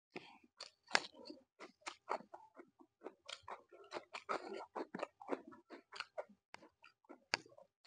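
Crisp crunching and chewing of fresh cucumber slices: a sharp bite about a second in, then a rapid run of short crunches.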